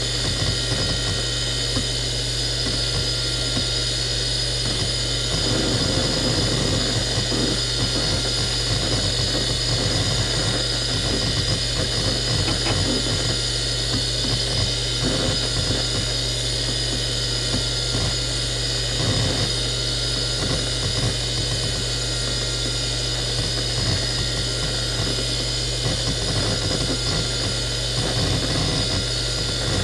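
A Seagate Barracuda 18XL ST318436LW, a 7,200 RPM three-platter SCSI hard drive, spins with a steady ball-bearing whine and hum. Its heads seek in soft, irregular chatter as an operating system boots from it, the access sounds mostly buried under the whine.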